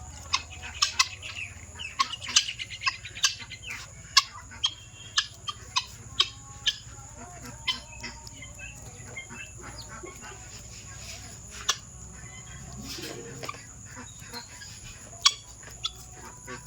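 Guinea fowl giving short, sharp, repeated calls, coming in quick runs for the first several seconds and more scattered after that.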